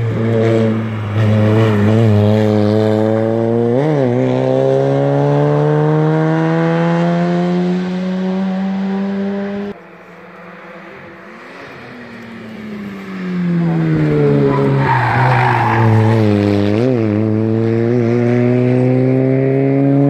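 Hillclimb race cars taking a hairpin one after another. The first car accelerates out of the bend with its engine revs rising steadily and a sharp spike about four seconds in, then the sound cuts off abruptly. After a quieter stretch a second car comes in with revs falling as it slows for the hairpin, gives a short harsh burst of noise in the turn, and accelerates away with rising revs.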